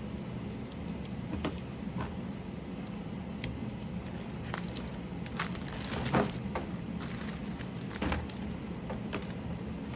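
Scattered, irregular clicks and light taps of mechanical keyboard parts being handled as keycaps and switches are pulled and pressed in, with a loud cluster about six seconds in. A steady low hum runs underneath.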